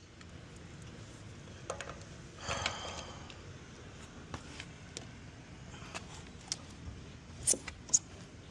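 A few sharp, scattered clicks and a short scrape of metal tools being handled at a car wheel's lug nuts, the two loudest clicks close together near the end.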